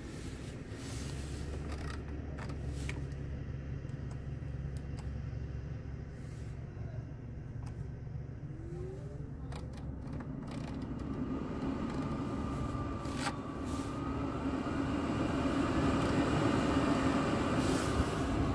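Scania R truck's diesel engine idling, heard inside the cab, with sharp clicks of the dashboard climate-control knobs and buttons being turned and pressed. Past the middle a rising whine comes in and a rush of air grows louder toward the end as the cab's ventilation blower speeds up.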